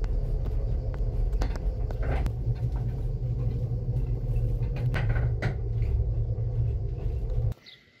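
Steady low rumble inside a moving Teleférico de Madrid cable car cabin, with a few light knocks; it cuts off suddenly near the end.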